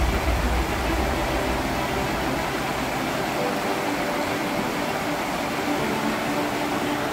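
Background music in a quiet, beatless passage: a steady airy hiss with faint held notes.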